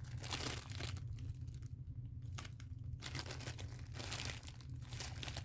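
Hands squeezing and handling a very soft foam squishy toy: irregular soft crinkling and rustling in short spells, over a steady low hum.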